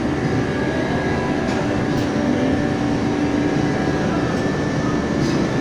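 A steady mechanical drone with a few constant hum tones, unchanging throughout.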